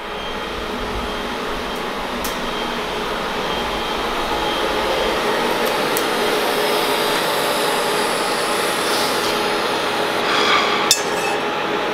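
TIG welding a steel pipe bend at a workbench: a steady hiss with faint whining tones from the welding setup, growing slightly louder, and one sharp click about eleven seconds in.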